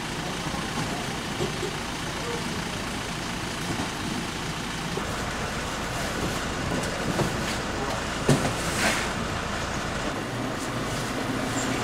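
A vehicle engine running steadily, with indistinct voices and a single knock about eight seconds in.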